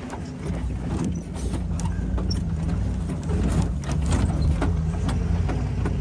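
A motor vehicle's engine running steadily, its low hum stepping up and down in pitch now and then, with scattered clicks and knocks.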